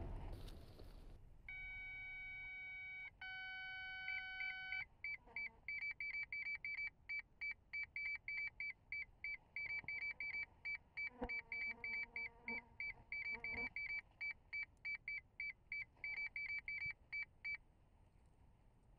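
Faint electronic beeping from the landed rocket's onboard avionics: two long steady tones, then a fast run of short high beeps in uneven groups, about three a second, which stops shortly before the end.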